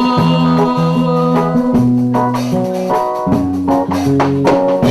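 Live church band music between sung lines of a worship song: a bass line moving in held notes, sustained chords above it and drums keeping a steady beat.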